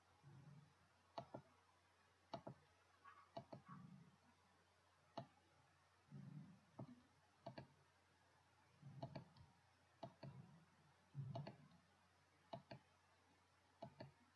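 Faint computer mouse button clicks, about a dozen at irregular intervals, with soft low thumps in between.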